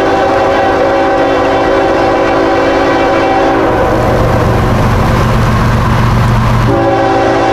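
Raised-letter Nathan K5HL five-chime air horn on CSX GE ES44AH locomotive 3117, blowing for a grade crossing: one long blast stops about halfway through and another starts near the end. Under it is the low rumble of the approaching diesel locomotives, growing stronger through the second half.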